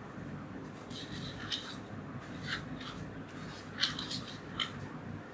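A few faint, scattered clicks and short scratches of something being handled, over a steady low room hum.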